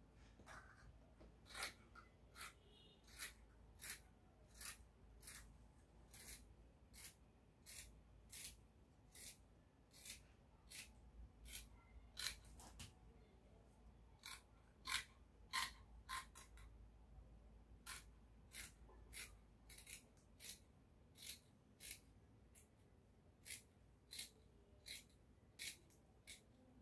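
Scissors cutting through fabric: a steady run of short, crisp snips, about one or two a second, as a dress piece is cut out of folded cloth.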